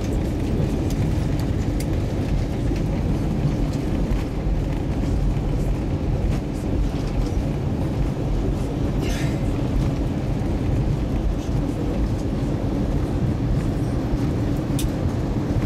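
Steady low rumble inside the cabin of an Airbus A320 rolling on the ground after landing.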